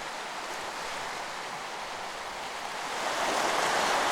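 Hat Creek, a clear mountain stream, rushing over lava rocks: a steady wash of running water that gets louder about three seconds in.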